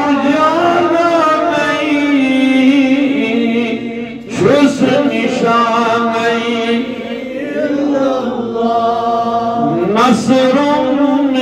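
A man's voice chanting in long, held melodic phrases, with new phrases beginning about four seconds and about ten seconds in.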